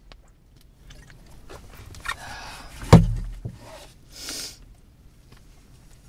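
Rustling inside a car, then a glove box lid shut with a single sharp thump about three seconds in, followed a second later by a short burst of hiss.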